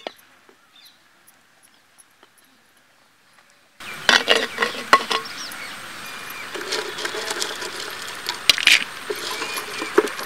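Faint for the first few seconds apart from one click. Then, about four seconds in, hot oil in a clay pot starts sizzling steadily as whole spices are dropped in, with many sharp clinks over the sizzle.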